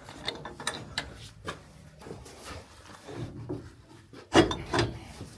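Work-handling noise: irregular clicks, knocks and scraping, loudest as two knocks a little past four seconds in.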